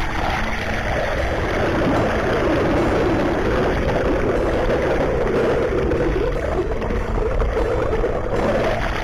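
Muffled, steady rushing and bubbling of churning water, heard through an SJCam action camera's waterproof case while it is submerged.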